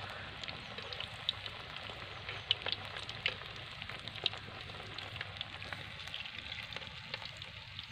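Banana-flower vadai deep-frying in a wide pan of hot oil: a steady sizzle with scattered sharp crackles.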